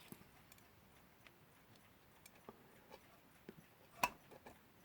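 Faint scattered clicks and taps of small metal clock parts and a screwdriver being handled, with one sharper click about four seconds in.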